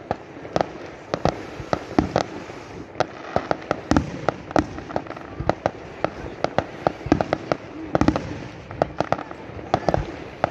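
Aerial fireworks bursting: an irregular run of sharp bangs and crackles, several a second, throughout.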